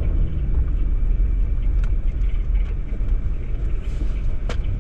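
Car moving slowly, heard from inside the cabin: a steady low rumble of engine and tyres on a rough road, with a few faint, scattered ticks.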